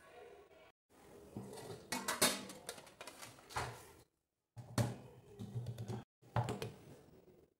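An upturned glass dish knocked and tapped against a steel plate, a series of sharp knocks with handling clatter in between, as a set agar pudding is worked loose from the dish.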